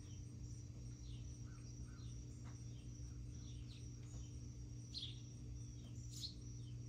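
Faint outdoor ambience: birds chirping now and then in short falling chirps, the clearest a little before five seconds and around six seconds, over a steady high insect trill and a low hum.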